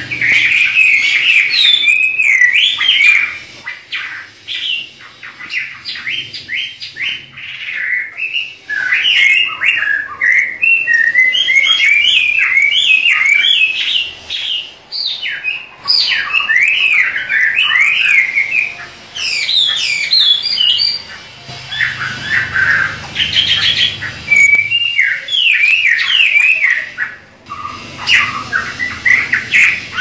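Chinese hwamei (Garrulax canorus) singing: long runs of rapid, varied whistled notes that slide up and down in pitch, broken by a quieter stretch a few seconds in and a short pause near the end.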